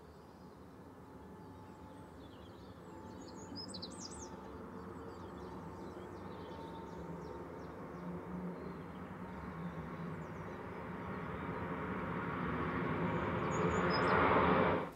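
Twin-engine jet airliner, by its look a Boeing 787 Dreamliner, taking off and climbing overhead, its engine roar growing steadily louder throughout. A bird chirps a few times about four seconds in and again near the end.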